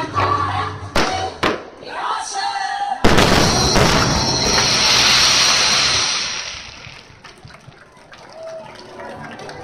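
Music with sharp drum hits, then a sudden loud firework burst about three seconds in, followed by about three seconds of crackling that fades out.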